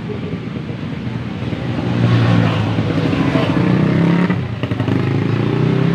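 Road traffic: a motor vehicle's engine running close by, getting louder about two seconds in as it passes.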